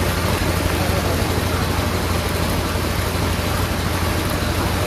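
An engine runs steadily with a low hum while a stream of liquid rubber latex gushes from a pipe and splashes into a steel mesh strainer.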